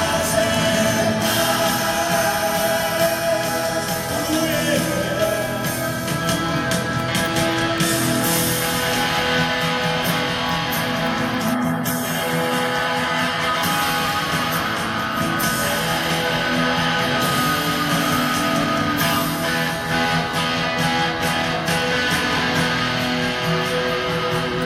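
Rock band playing live: electric guitars, bass guitar and drums in an instrumental stretch without lead vocals, heard through the concert hall's PA.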